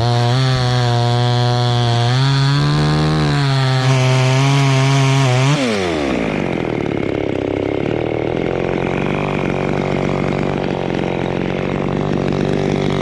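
Two-stroke chainsaw running at high revs, cutting into teak wood, its pitch rising a little partway through. About five and a half seconds in, the throttle is released and the engine drops sharply to a steady idle.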